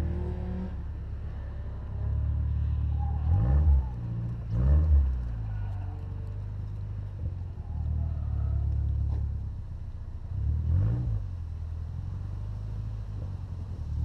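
2007 Mazdaspeed 6's turbocharged four-cylinder running low and steady as the car creeps along at low speed. Three times the engine speed briefly rises and falls: about three and a half seconds in, about five seconds in and about eleven seconds in.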